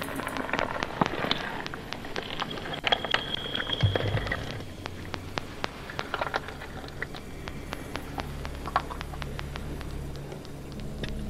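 Experimental electronic soundtrack of scattered clicks and crackles, thickest in the first half, with a brief high tone about three seconds in and a low hum that comes in about eight seconds in.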